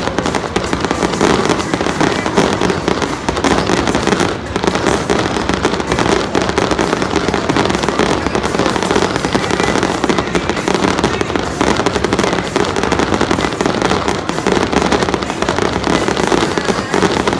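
Fireworks display: a dense, unbroken barrage of shell bursts and crackle.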